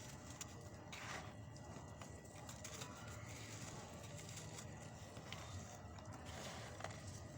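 Hard chunks of pure cement being crumbled, a faint, irregular crunchy crackling with a few sharper cracks about a second in and near the end.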